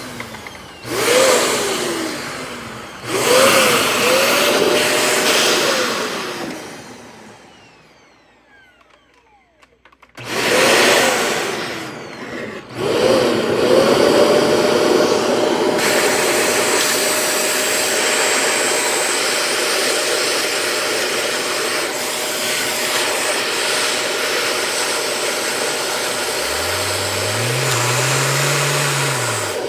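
Vacuum cleaner switched on and off several times, its motor whining up to speed and winding down, once fading out almost completely, then switched on again and running steadily. Near the end a second, lower motor sound rises and falls in pitch.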